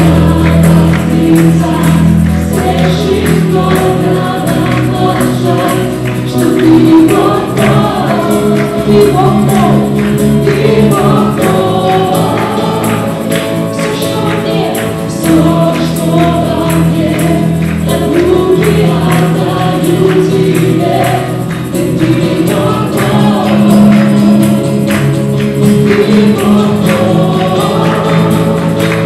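Live worship band playing a song: a group of men and women singing together into microphones over acoustic guitar, electric bass and keyboard, with a steady percussive beat.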